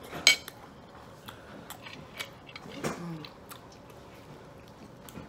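Close-up chewing and biting while eating barbecued chicken wings, with wet mouth clicks and smacks; the loudest is a sharp click about a quarter second in, and a short murmur is heard near three seconds in.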